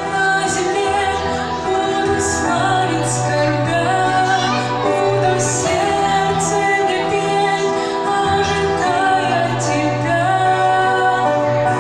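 Background music: a song with a woman singing over sustained bass notes that change every couple of seconds.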